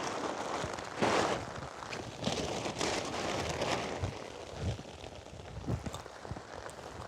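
Large plastic tarp rustling and crackling as it is handled and spread out, in uneven surges, over a steady patter of rain.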